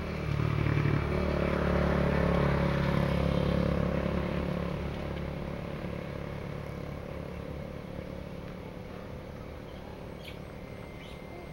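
Motorcycle engine running steadily, loudest over the first few seconds and then slowly fading away.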